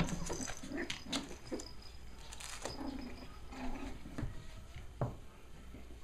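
Five-week-old Cavalier King Charles Spaniel puppies play-fighting: a string of short, low puppy growls and small yips, with scuffling and paw clicks on the rug and dog bed.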